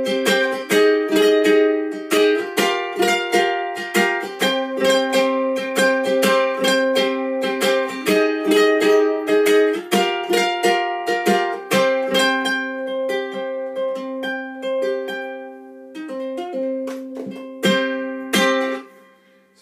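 Godin MultiUke tenor electro-acoustic ukulele strummed in a quick, steady rhythm through a Cornell valve amplifier, changing chords every couple of seconds. It plays softer for a few seconds after the middle, then closes with a loud final strum that is cut off short near the end.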